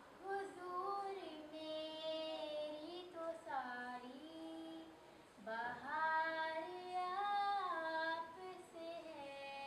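A young girl singing a naat (Urdu devotional poem) solo and unaccompanied, in long held, ornamented phrases, with a brief breath pause about halfway through.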